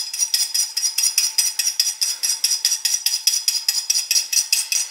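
A spoon clinking fast and evenly against the side of a small ceramic bowl, about six clinks a second, as it briskly stirs olive oil and balsamic vinegar together.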